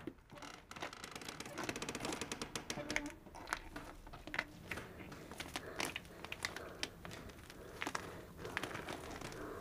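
Irregular crackling and rustling, like dry material being crumpled, with many scattered sharp clicks over a low hiss.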